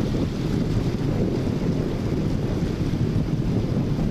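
Strong wind buffeting a phone's microphone during a desert rainstorm: a steady, heavy low rumble.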